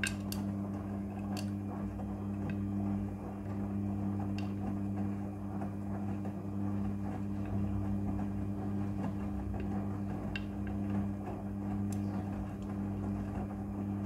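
Front-loading washing machine running its wash cycle. The motor hums steadily as the drum turns the wet laundry, with a few sharp clicks from the tumbling load.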